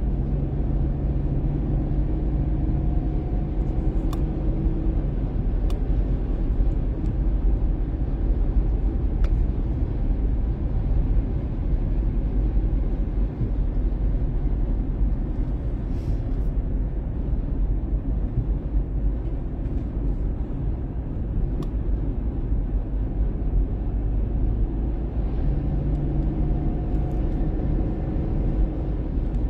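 Steady low rumble of a car driving, with road and engine noise heard from inside the cabin; a faint hum comes in near the start and again near the end.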